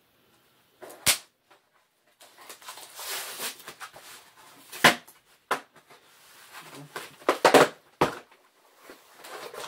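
A cardboard box and its packing material being handled: rustling and crinkling, broken by several sharp knocks and taps, the loudest about a second in, near five seconds and around eight seconds.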